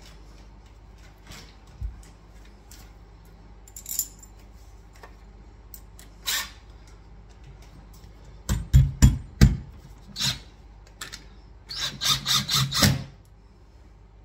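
Cordless impact driver driving a screw through a metal cabinet-hanging bracket into the wall, in two short runs of rapid pulsing bursts about three seconds apart, with light handling clicks before.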